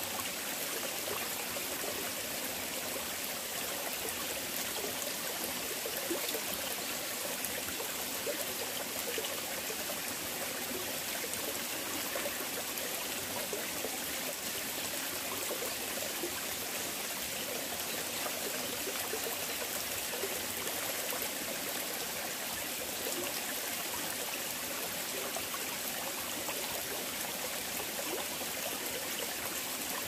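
Mountain valley stream flowing over rocks: a steady, even rush of running water.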